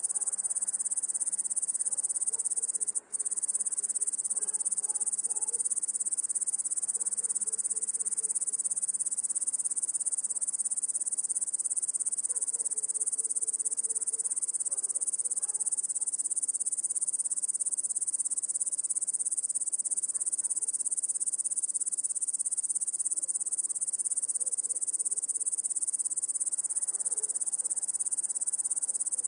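Crickets chirping in a dense, steady high-pitched chorus, with faint lower sounds coming and going underneath. The sound drops out briefly about three seconds in.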